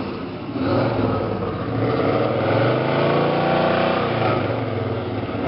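Exhaust of a 1970 Chevelle SS 396's modified 396 cubic-inch V8 with Hooker headers, running and then blipped once: the pitch rises about two seconds in and settles back before the end.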